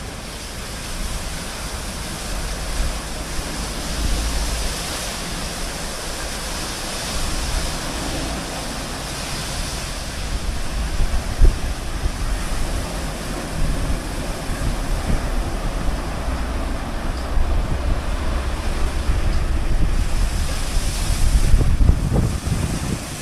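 Automatic rollover car wash gantry working over a car: a steady rushing, hissing wash of water and machinery noise with a low rumble underneath.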